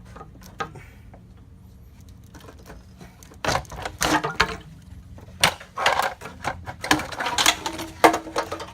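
Radiator and fan shroud assembly being wrestled out of a tight engine bay past the coolant reservoir: a run of knocks, clunks and scraping that starts about three and a half seconds in.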